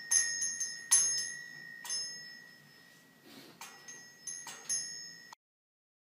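Small metal bell on a parrot's cage toy being knocked and ringing, about six irregular strikes with the ring fading between them. The sound cuts off suddenly a little over five seconds in.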